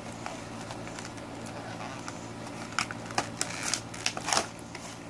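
Crinkling and crackling of a small plastic Shopkins blind bag as a child's fingers pick it open, coming in a quick run of crackles from a little past halfway, over a faint steady hum.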